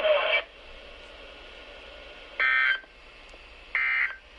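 Two short, identical buzzy warbling bursts of NOAA Weather Radio SAME digital data, just over a second apart: the Emergency Alert System end-of-message code that closes the weekly test broadcast.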